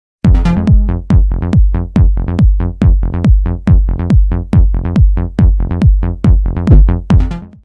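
Loud electronic dance music for a channel intro, driven by a steady kick drum beating a little more than twice a second. It starts a moment in and stops abruptly near the end.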